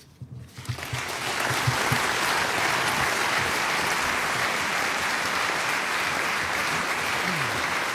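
Audience applauding. The clapping swells up within the first second and then holds steady.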